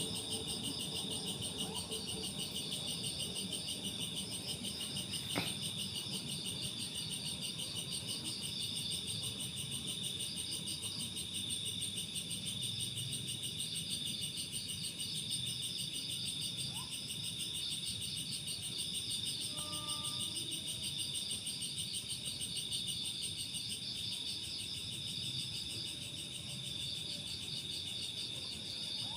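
A dense, continuous high-pitched insect chorus, a steady fast trilling that runs without a break. A single sharp click sounds about five seconds in.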